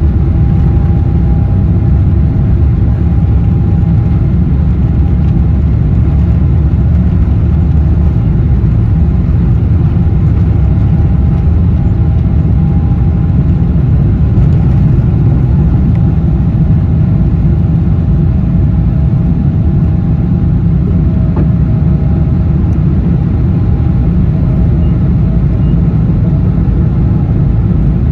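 Boeing 777-200's twin jet engines at takeoff thrust, heard from inside the cabin: a loud, steady low noise with a faint whine, through the takeoff roll and into liftoff.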